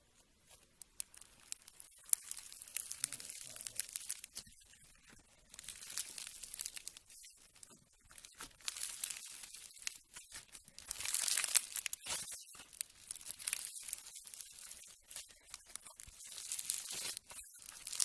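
Slime being worked by hand: dense crackling, popping and crinkling in waves that rise and fall every second or two.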